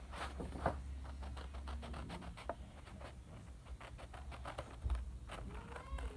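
Scissors snipping through a sheet of paper in a run of short, irregular clicks, with the paper rustling as a traced circle is cut out.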